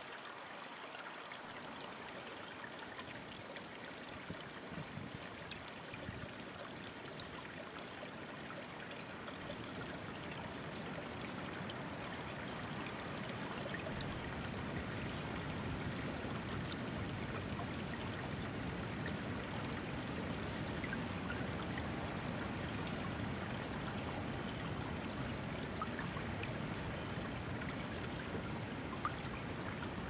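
Shallow rocky stream running over stones and small drops: a steady rush and trickle of water that grows a little louder about halfway through.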